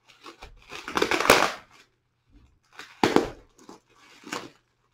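Plastic bubble wrap being handled and pulled off a package, crinkling and crackling in several bursts, the longest and loudest about a second in, then a sharp crackle about three seconds in and a smaller one near the end.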